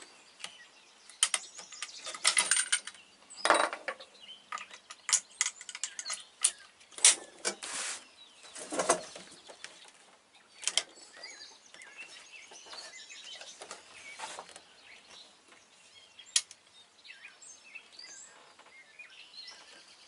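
Metal clicks and knocks from handling a .45-70 rifle and gear at a shooting bench, clustered in the first half and once more near the end, with birds chirping faintly in the background.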